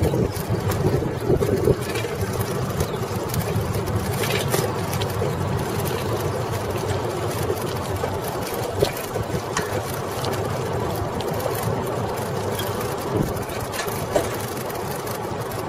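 Steady rumble and rattle of a Coker Monster Cruiser bicycle, with its 36-inch tyres, rolling over city pavement, picked up by cameras mounted on the bike, with a few light knocks.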